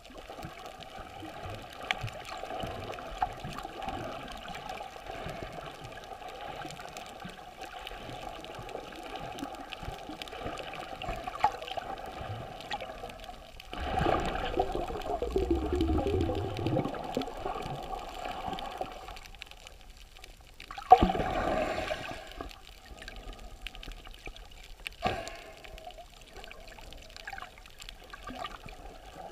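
Water sloshing and bubbling as heard by a camera held underwater while snorkeling. It swells louder for several seconds about halfway through, and there is a sudden loud surge a little later.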